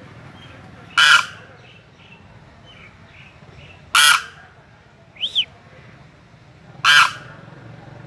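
A caged crane giving loud, short honking calls, three of them about three seconds apart.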